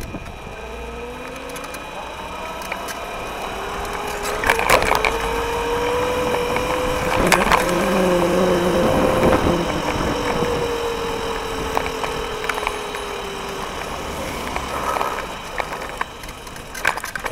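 Electric scooter's motor whining as it rides over asphalt, the pitch rising as it picks up speed through the first half and then slowly falling as it eases off. The scooter rattles, with a few sharp knocks over bumps.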